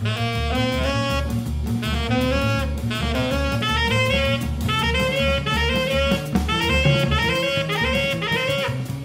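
Jazz trio playing: a tenor saxophone blows a quick, continuous line of notes over walking bass and a drum kit with busy cymbal and drum strokes.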